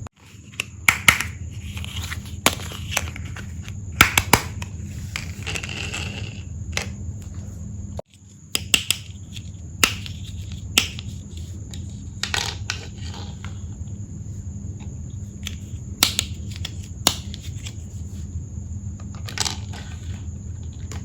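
Small hard plastic toy tea-set pieces clicking and clacking as they are handled, with crinkling of packaging during the first few seconds. A steady low hum runs underneath.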